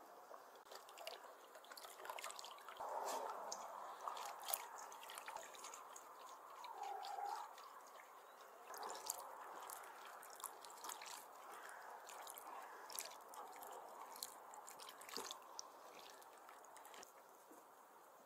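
Hot soup being ladled and stirred in a large metal pot with a wooden spoon, the liquid splashing and trickling, with scattered light clicks and knocks of wood against metal.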